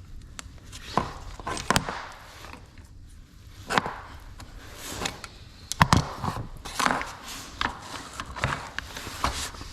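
Irregular sharp knocks and clicks as copper pipe and fittings are handled while a repair line is worked on.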